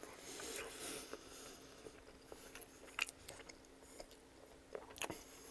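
Close-miked chewing of a mouthful of coney dog, a hot dog in a soft bun: quiet mouth noise with a few sharp wet clicks, the clearest about three seconds in and near the end.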